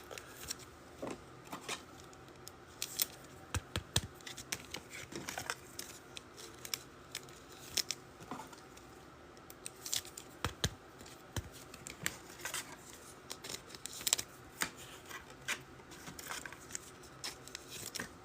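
Trading cards and packs being handled: irregular light clicks, slides and rustles of card stock as cards are pulled and sorted by hand.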